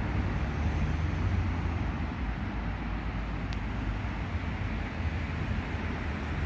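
Steady outdoor background noise: a low, fluctuating rumble with an even hiss over it and no distinct event.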